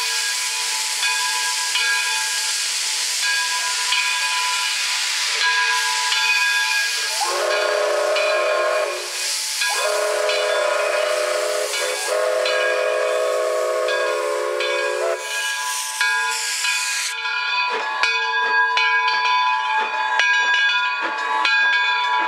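Coal-fired steam locomotive hissing steam from its open cylinder cocks as it starts away. Its steam whistle blows twice over the hiss, a short blast then a long one of about five seconds. The hiss stops near the end and the clicks and knocks of wheels over the track take over as the coaches roll past.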